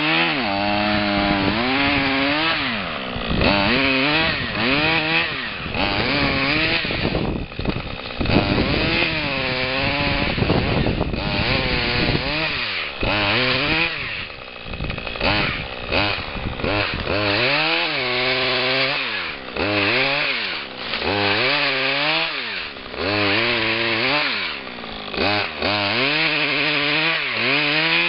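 Husqvarna 535 FBx backpack saw's two-stroke engine revving up and dropping back over and over, about every two seconds, while cutting small beech stems.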